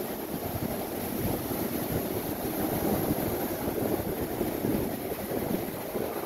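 Steady rumble of wind buffeting the microphone over the rush of breaking surf.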